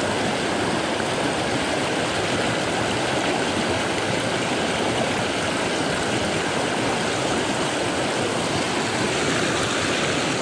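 Small rocky cascade in a mountain brook, white water rushing steadily over the rocks.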